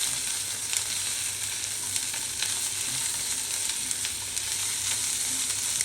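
Chicken pieces with mushrooms and capsicum sizzling steadily as they sauté in a frying pan, with a few light clicks scattered through.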